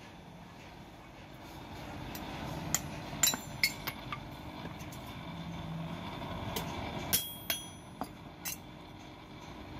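Scattered sharp metal clinks, some briefly ringing, as blacksmith's tongs and hammers are handled at the anvil around a freshly forged leaf-spring steel axe head. Under them is a low rumble that swells in the middle and fades toward the end.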